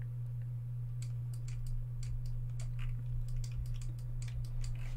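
Scattered, irregular clicks of a computer keyboard and mouse being operated, over a steady low hum.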